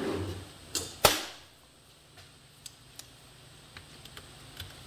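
A sharp knock about a second in, then a few faint light ticks: a small hand tool being handled and then worked against the metal clutch hub of a motorcycle.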